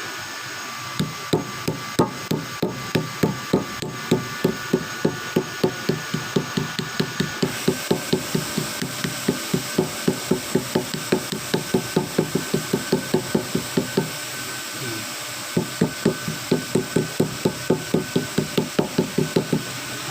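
Rapid repeated tapping, about three knocks a second, in two long runs with a short pause about 14 seconds in: the sealing cap strip of a new auxiliary car battery being tapped down until it seats flat.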